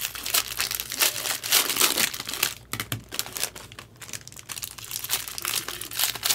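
Plastic wrapping crinkling and tearing as a trading-card box or pack is handled and opened, in a dense, irregular run of sharp crackles.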